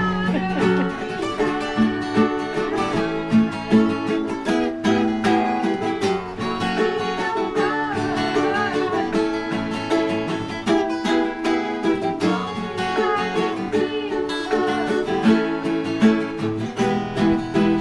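Background music: acoustic plucked-string instrumental with a steady run of picked notes.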